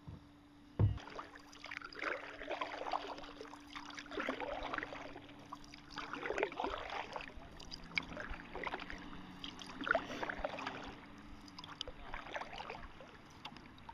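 Canoe paddle strokes: repeated splashes and gurgles of water as the paddle dips and pulls, coming every second or two, with a sharp thump against the canoe about a second in.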